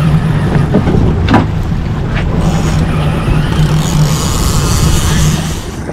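Outboard motor running steadily while the boat moves, with the rush of wind and water spray over it.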